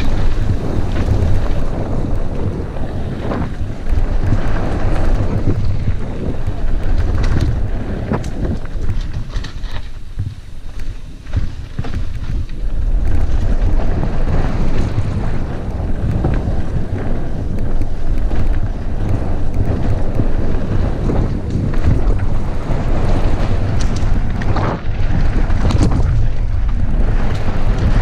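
Wind buffeting a helmet-mounted camera's microphone as a mountain bike descends a dirt trail at speed, with tyre noise and scattered knocks and rattles from the bike over rough ground. The loudness dips briefly about ten seconds in.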